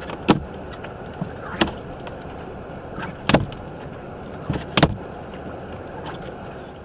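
Steady road and cabin noise inside a moving car, with four sharp knocks about a second and a half apart.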